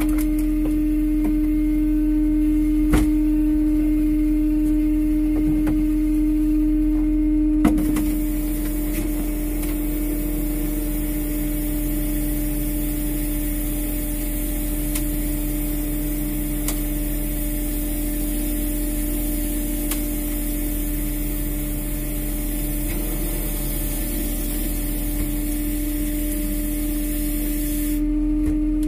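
Steady mechanical hum of a fishing boat's machinery running, one strong even tone over a low drone. There is a sharp click about three seconds in and a knock near eight seconds, after which a steady hiss joins the hum.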